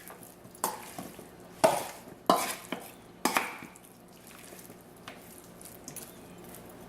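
Cut-up chicken legs being stirred in a curry marinade in a pot: four sharp stirring strokes in the first half, then quieter movement.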